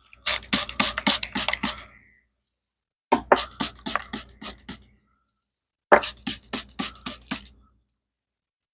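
Three quick runs of sharp tool strikes or clicks on metal, about four a second, each run lasting around a second and a half with a short pause between.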